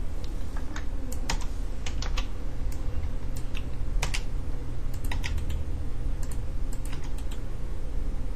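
Irregular clicks of a computer keyboard and mouse, about a dozen scattered sharp taps, over a steady low hum.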